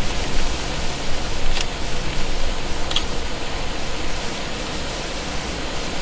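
A steady, even rushing noise with a low rumble beneath it, broken by two brief high ticks, about one and a half and three seconds in.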